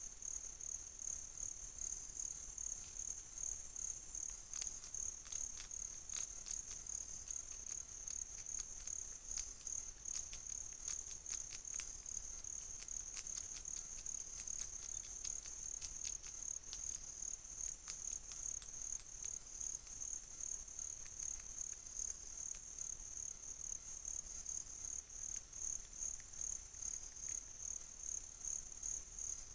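Rainforest insects calling: one continuous high-pitched trill that pulses evenly. A run of faint sharp clicks comes and goes in the middle.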